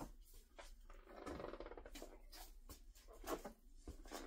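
Faint footsteps across a shop floor with scattered small knocks and rustles, as someone walks to a shelf and picks up a can.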